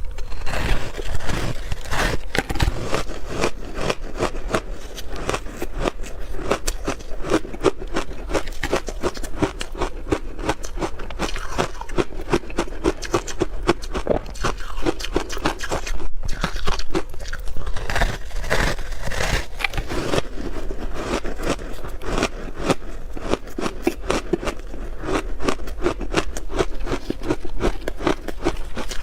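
A person biting and chewing ice: a dense, continuous run of hard crunches and cracks, several a second, with a brief pause about sixteen seconds in.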